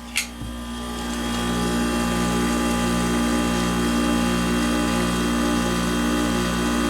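1993 Kenmore 6,000 BTU window air conditioner with a rotary compressor, running with a steady mechanical hum of compressor and fan. A sharp click comes just after the start, and the hum grows louder over the next second or so, then holds steady.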